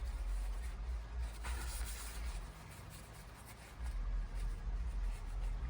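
Faint scratchy rubbing and handling noise over a low rumble, with a short hiss about one and a half seconds in.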